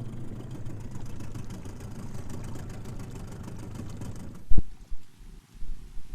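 Small two-stroke outboard motor running steadily at low revs. About four and a half seconds in, a single sharp loud thump, after which the motor sound cuts off and a duller, quieter sound follows.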